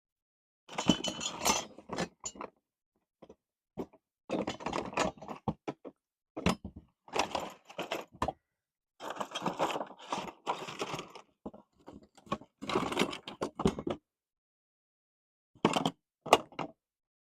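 Hard objects, likely metal tools, being handled and rummaged through: irregular bursts of clinking and clattering with knocks, broken by short silences.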